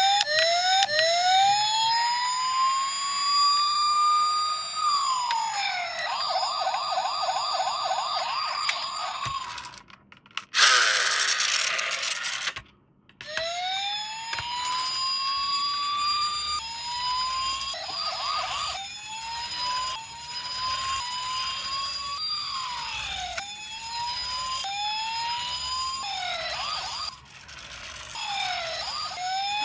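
Toy police car's electronic siren sounding in changing patterns: a long rising wail, a fast warble, a brief noisy burst about ten seconds in, then a run of short rising whoops repeated about once a second.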